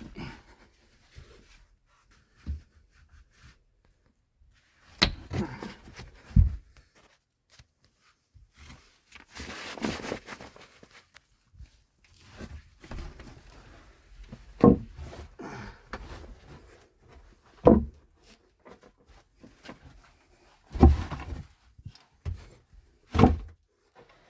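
A person clambering through a cramped attic: scattered knocks and thumps of body, hands and feet against the structure, with a couple of seconds of rustling about ten seconds in.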